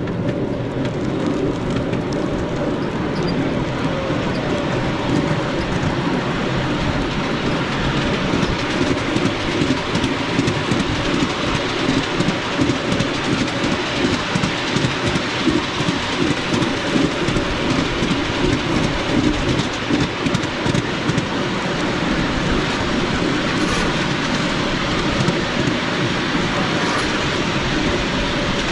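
Miniature railway train running along the track in a continuous run, with a regular pulsing beat through the middle stretch.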